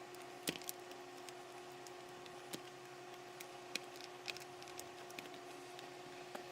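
Faint, scattered small clicks and taps of hands working inside an opened radio-control transmitter, handling its plastic parts and connectors, over a steady faint hum.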